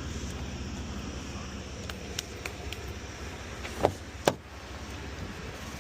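Truck engine idling steadily, with a few light clicks and then two sharp knocks close together about four seconds in.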